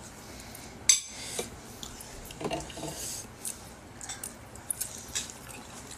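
Cutlery clinks against a bowl while someone eats. There is one sharp clink about a second in, then a few fainter clinks.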